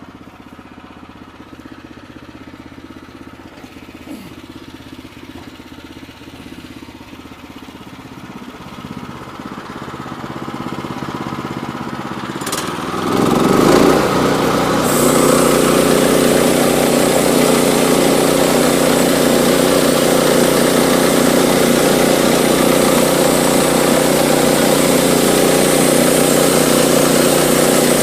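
Woodland Mills HM122 band sawmill's small gas engine running slowly and gradually getting louder, then throttled up sharply about halfway through so the band blade spins at speed. A couple of seconds later a steady high hiss joins the engine as the band blade saws through a jack pine log, and the mill runs on loud and even.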